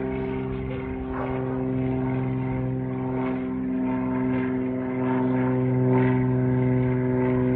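Small propeller airplane climbing out overhead after takeoff: a steady engine-and-propeller drone with an even pitch, growing a little louder as it passes.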